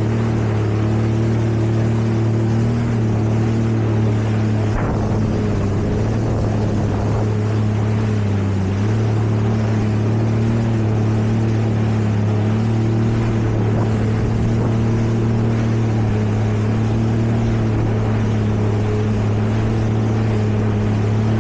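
Jet ski engine running at a steady speed, a constant-pitched hum that dips slightly for a moment about eight or nine seconds in.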